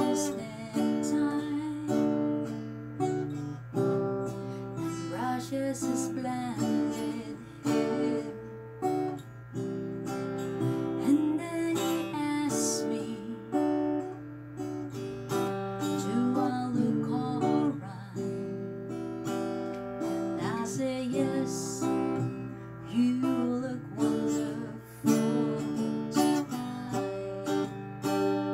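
Acoustic guitar played, chords strummed and changing every second or two.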